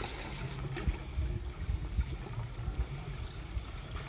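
Water trickling and lapping in an outdoor pool, over a steady low rumble, with a couple of short high chirps about three seconds in.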